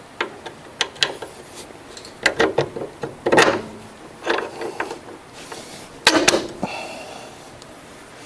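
Irregular metal clinks and knocks as a steel angle-iron tab and the lower shock bolt are worked into the lower control arm's shock mount by hand. The loudest knocks come about six seconds in, followed by a brief metallic ring.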